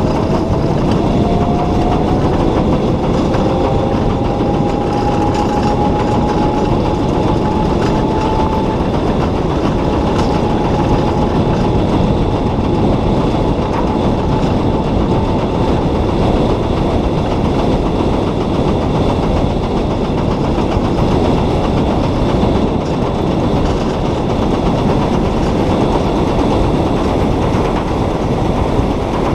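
Solar race car driving on a track, heard from a camera on the car's body: steady rumbling wind and road noise on the microphone. Over the first several seconds a thin electric-motor whine rises in pitch, then fades out.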